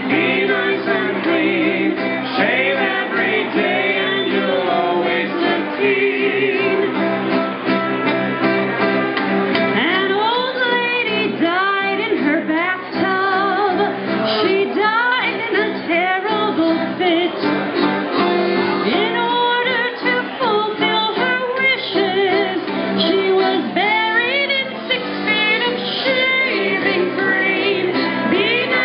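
Music: a song with a woman singing over instrumental accompaniment.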